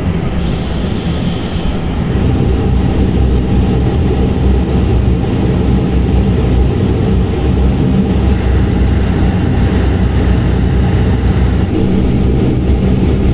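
Airliner noise, loud and steady: jet engines and rushing air with a deep rumble.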